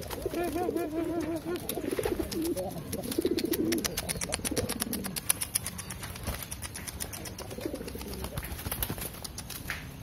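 Domestic pigeons cooing in repeated wavering calls, mostly in the first half: a male driving (giring) his newly paired hen, the sign that the pair has bonded. Behind them runs a fast, faint high ticking.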